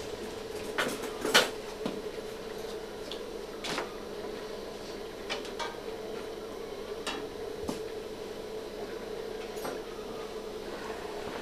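A steady hum with scattered light clicks and knocks from handling close by, the sharpest about a second and a half in.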